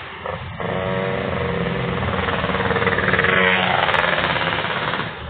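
A motor vehicle's engine passing close by. It grows louder to a peak a little past the middle, dropping in pitch as it goes past, then fades.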